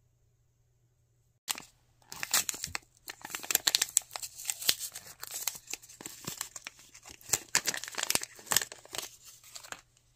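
Small printed plastic Mini Brands wrapper being torn open and crinkled by hand: a dense run of crackles and rips that starts about a second and a half in and stops just before the end.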